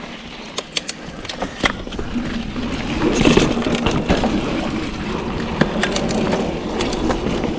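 Trek Fuel EX5 mountain bike being ridden along a dirt trail: tyres rolling over the ground with frequent sharp ticks and rattles from the bike, growing louder from about three seconds in.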